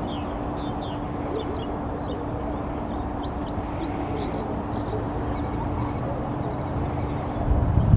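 Small birds chirping over and over above a steady low rumble with a faint constant hum. Near the end a brief, louder low rumble swells in.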